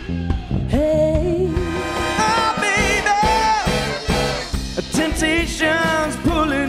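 Live soul band playing a northern soul number: drum kit, bass and brass over a steady beat, with singers holding long wavering notes.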